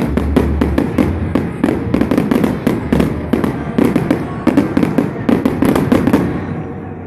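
Fireworks display: aerial shells bursting in rapid volleys, with many sharp bangs and crackles a second from crackling stars. The bangs thin out and fade near the end.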